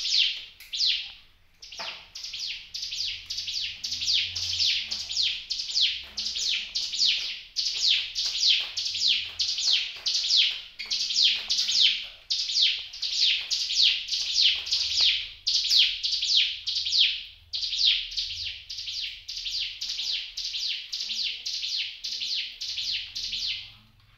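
Ciblek gunung (bar-winged prinia) singing: a long, fast, even series of loud, high chirps, each sliding downward, about two to three a second. It breaks briefly after about a second and a half and stops suddenly at the end.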